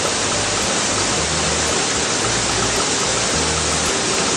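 Steady rushing of flowing water, like a stream, with no rise or fall.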